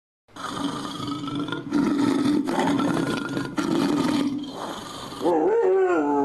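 Tiger roaring and growling, built from several spliced sound-effect clips that cut abruptly into one another. About five seconds in, it gives way to a wolf howl with a wavering pitch.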